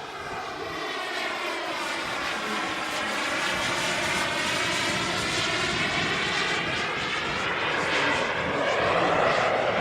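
Turbine engine of a radio-controlled Hangar 9 Aermacchi MB-339 jet model in flight, a steady jet rush growing louder as the plane passes, loudest near the end.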